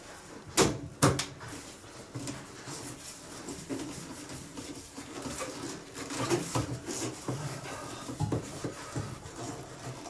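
Two sharp knocks about half a second apart near the start, then quieter scattered knocks and handling clatter of hands working on a leaking push-fit joint in plastic heating pipework.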